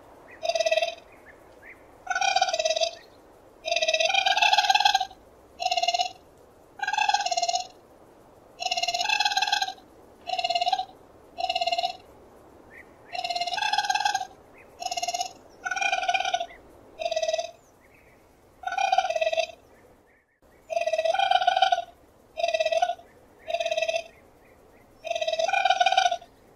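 Raccoon calling over and over in short, high, chirping cries, each under a second long, coming about once a second with a brief pause near twenty seconds in.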